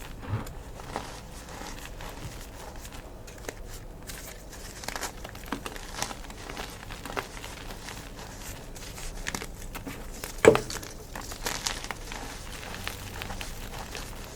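Gym chalk being crushed, a steady run of small crackles and crumbling sounds, with one louder crunch about ten seconds in.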